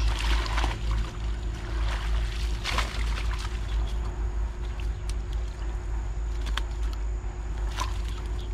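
Water sloshing, with scattered short splashes or clicks over a steady low rumble.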